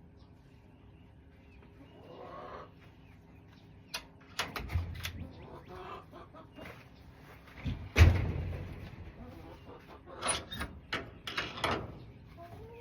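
Backyard hens clucking on and off in short bursts, with a loud thump about eight seconds in.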